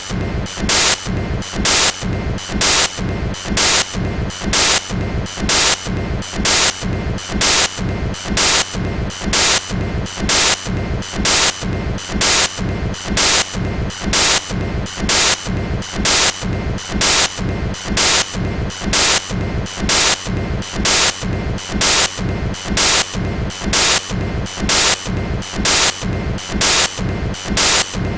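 Freight cars of a passing train rolling by at steady speed. The wheels clatter over the track in short, harsh bursts at an even pace, about one and a half a second.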